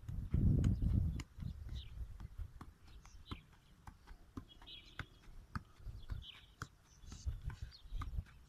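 A football tapped repeatedly on the foot as it is juggled and dribbled on grass: a run of light thuds, about two a second. A low rumble on the microphone around the first second.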